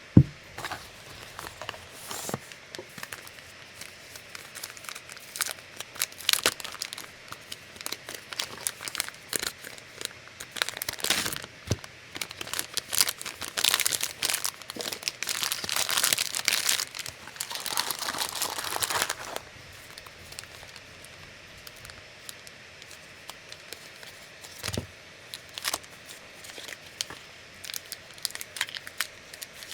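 Packaging being handled and unwrapped by hand: crinkling, rustling and tearing, densest in the middle. There is a sharp knock right at the start and another a few seconds before the end.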